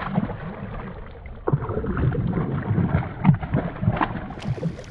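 Rushing river water with wind rumble and knocks on the microphone; the rumble gets louder about a second and a half in.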